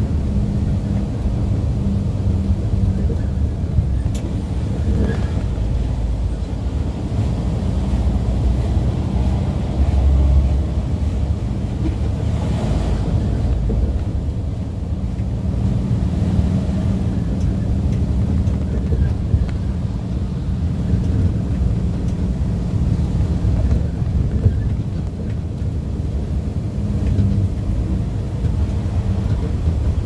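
Steady low rumble of a vehicle's engine and tyres while driving through town traffic, with a brief low swell about ten seconds in.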